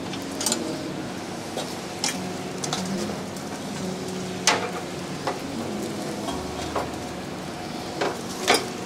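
Hot oven-roasted lamb sizzling as it is handled on a metal peel at the mouth of a tandır oven, with several sharp metallic clinks, the loudest about halfway through and near the end.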